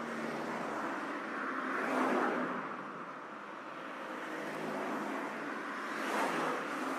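Road traffic: cars passing by, their tyre and engine noise swelling and fading twice, about two seconds in and again about six seconds in.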